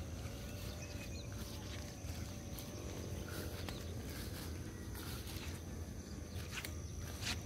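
Quiet open-field ambience under a steady low rumble, with a faint steady high whine, a thin wavering tone and a few faint chirps. There are scattered soft knocks, the strongest one near the end.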